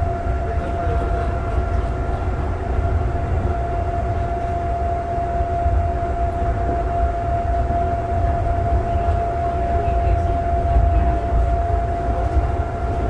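Calgary CTrain light rail car, a Siemens S200, running at steady speed, heard from inside the car: a continuous low rumble with a steady high whine over it.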